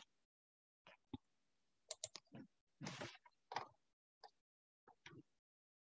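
Near silence, broken by a few faint, irregularly spaced clicks and knocks.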